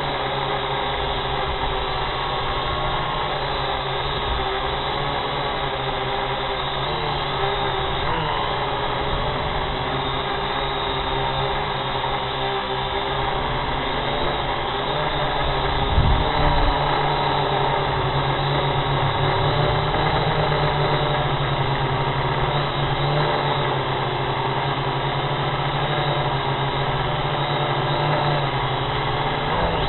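Quadcopter drone's electric motors and propellers running steadily, heard from the drone itself as a whine of several held tones. A brief low thump comes about halfway through, after which the low hum is a little stronger.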